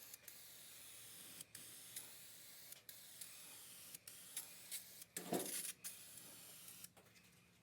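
Aerosol can of Dupli-Color 2-in-1 filler primer spraying, a steady hiss in passes with brief breaks as the nozzle is let off, stopping about seven seconds in. A short louder sound comes about five seconds in.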